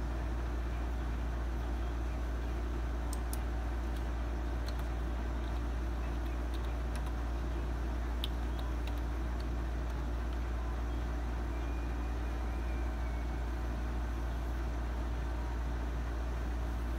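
Steady low hum and room noise, with a few faint clicks.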